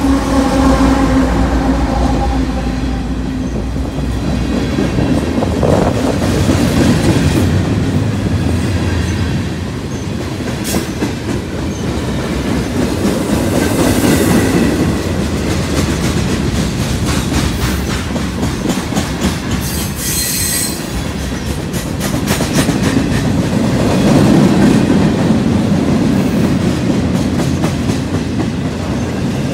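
Union Pacific freight train passing close by. The steady engine drone of the trailing diesel locomotive fades over the first few seconds. Boxcars then roll past with a continuous rumble and wheel clatter, and a brief high wheel squeal comes about two-thirds of the way through.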